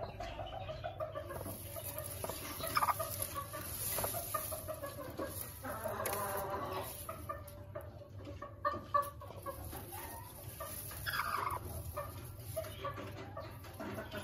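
Broody white Aseel hen clucking repeatedly while sitting on her eggs in a straw nest.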